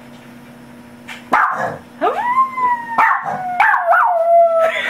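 Dog howling: a short bark about a second in, then a long howl that rises and slowly falls in pitch, breaking twice before it ends.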